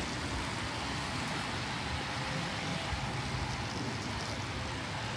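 Steady hiss of traffic on a wet city street in the rain, with a low engine hum from a passing or idling vehicle joining about two seconds in.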